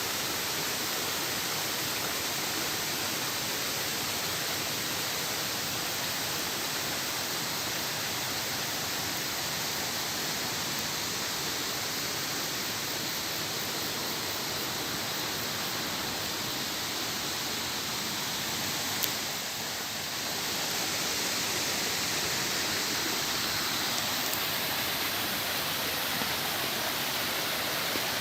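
Water from a waterfall and mountain stream rushing over rocks: a steady, even rush. There is a single short click about two-thirds of the way through.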